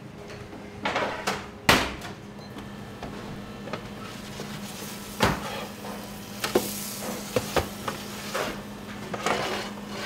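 Metal baking tray knocking and scraping against a deck oven as it is handled and slid in and out: a string of sharp clanks, the loudest about two seconds in, over a steady low hum.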